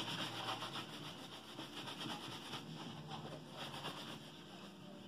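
Bristle shoe brush scrubbing back and forth over a leather military boot, brushing off the black ink just applied to it. The rapid, irregular scratchy strokes grow fainter toward the end.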